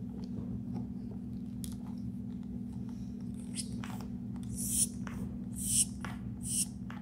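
Handheld pneumatic pressure calibration pump squeezed three times in the second half, about a second apart. Each stroke gives a short hiss of air that swells and cuts off as pressure is pushed into the gauge. A steady low hum runs underneath.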